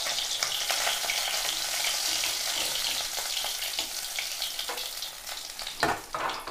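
Fish frying in hot oil in a kadai: a steady sizzle that fades toward the end as the last pieces are lifted out. A few sharp metal clicks near the end come from a metal spatula scraping and tapping.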